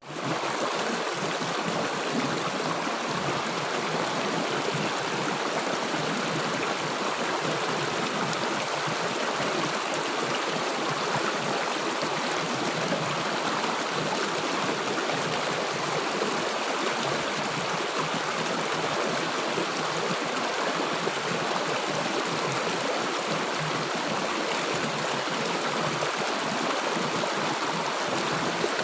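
River water rushing and gurgling over a stream bed in a steady, even rush, with a momentary dropout at the very start.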